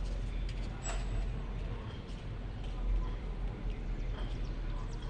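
Outdoor background noise: a steady low rumble with scattered faint short clicks and brief high chirps.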